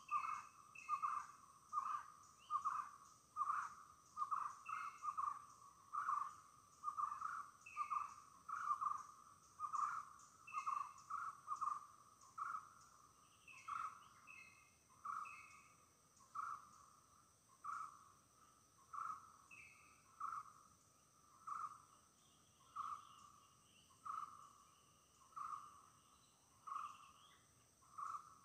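A bird repeating one short mid-pitched note over and over, about two a second at first and slowing to about one a second, with other higher chirps in the first half. A steady high insect drone runs underneath.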